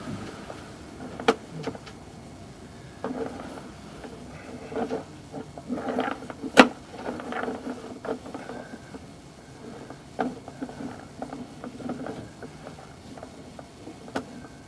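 Irregular clicks, knocks and scraping as a sewer inspection camera's push cable is pulled back through the pipe, with sharp knocks about a second in, near the middle and near the end.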